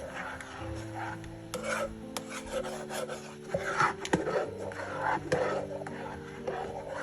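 Oatmeal being whisked in milk in a pot: a repeated scraping and rubbing of the whisk against the pan as the oats are mixed in. Background music plays underneath.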